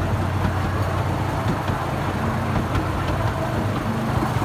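The engine of a small open-carriage tourist train running steadily as the train travels along, a low even hum.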